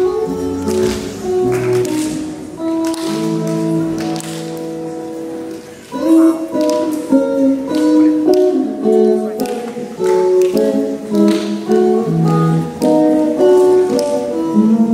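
Solo electric guitar played through an amplifier, picking a melody over chords. A few held notes fade about four to six seconds in, then the playing picks up again.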